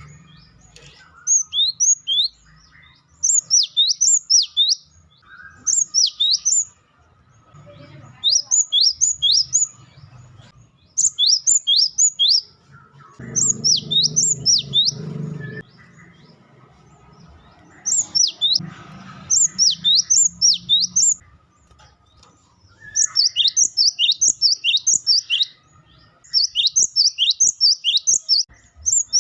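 Cinereous tit (gelatik batu) calling loudly: bursts of quick, sharp down-slurred notes, several to a burst, repeated with short pauses between. Near the end the bursts come faster and longer.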